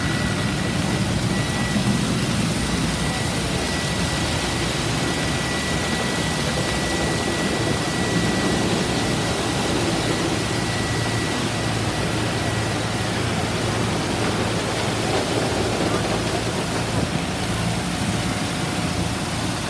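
Automatic tunnel car wash running: a steady wash of water spray and spinning cloth brushes over a car, with machinery hum beneath. A faint steady high whine runs through the first two thirds and then stops.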